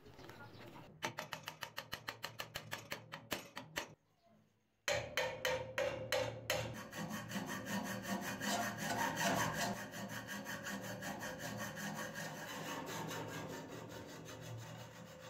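Hacksaw cutting through a steel rod pinned through a wooden axe handle, trimming it flush with the wood: rapid back-and-forth strokes, broken by a pause of about a second after about four seconds, then steady sawing.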